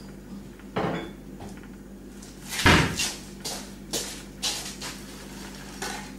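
Kitchen cupboard doors and put-away items knocking: a series of knocks and clicks, the loudest a heavy thud near the middle.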